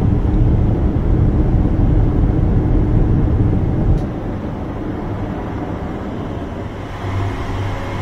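Gas burners of an industrial furnace (North American Tempest burners) running at high fire with a dense low rumble, which drops to a quieter steady rumble about four seconds in as the firing rate is turned down toward zero output.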